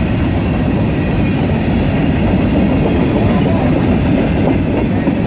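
Freight train's covered hopper cars rolling past close by: a steady, loud noise of steel wheels on rail.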